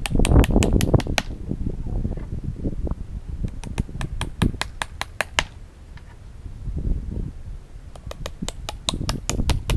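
Quick runs of sharp, light taps, several a second and coming in three bunches, over a low rumble: a hammer tapping nails into a larch-log nest box.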